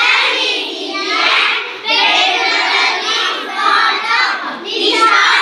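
Children's voices singing a poem in a sing-song chant.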